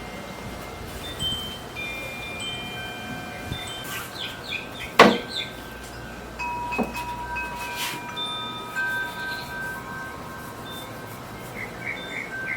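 Chimes ringing: clear tones of several different pitches that overlap, hold for a second or so and die away. A sharp knock comes about five seconds in, with two lighter knocks a couple of seconds later.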